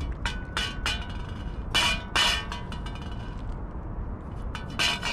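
A shallow stainless-steel dish clinking and ringing on stone as a cat licks it clean: a few light clinks, two louder ones about two seconds in, and another near the end.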